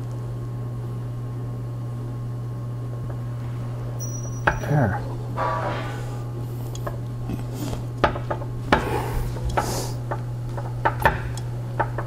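A steady low hum. From about four and a half seconds in, a run of clicks, knocks and light clatter as heated poly tubing is handled and pushed onto a barbed fitting, getting busier near the end.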